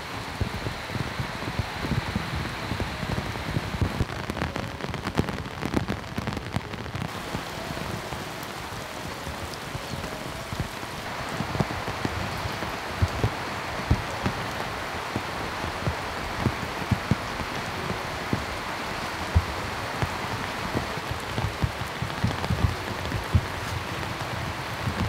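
Heavy rain falling steadily, with many sharp drips and splashes landing close by.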